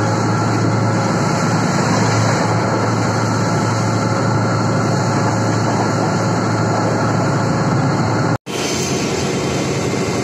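Class W2 diesel-hydraulic locomotive running at speed: a steady low engine drone under the running noise of the train on the track. The sound cuts out abruptly for a moment about eight seconds in, then carries on much the same.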